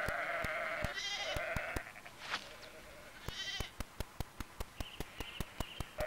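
Sheep and lambs bleating, several calls back and forth, some long and some short and high-pitched: the contact calls between ewe and lamb. In the second half a run of sharp ticks, about four a second, comes in under the calls.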